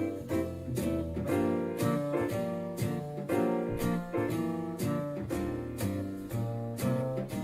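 Instrumental music with a steady beat played back through a small Bluetooth speaker and picked up by a microphone in the room.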